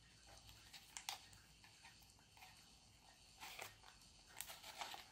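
Near silence, with a few faint scrapes and clicks of hands handling a foam model wing: one about a second in and a small cluster near the end.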